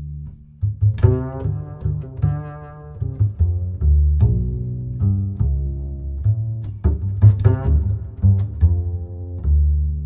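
Music with deep bass notes and sharp accented hits at an uneven pace.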